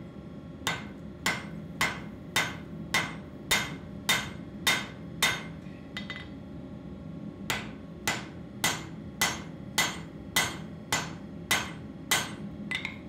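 Cross-peen hand hammer striking a red-hot mild-steel axe blank on an anvil, a steady beat of close to two blows a second, each with a short ring. There are two runs of blows: about nine, a pause of about two seconds, then about ten more.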